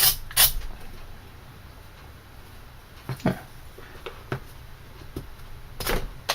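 Serrated multi-tool blade scraped across hardwood to raise fine tinder curls. Two last rasping strokes come right at the start, then a few light clicks.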